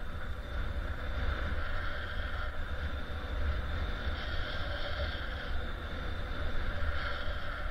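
Wind buffeting the camera's microphone: a steady, choppy low rumble with a steady higher hiss over it.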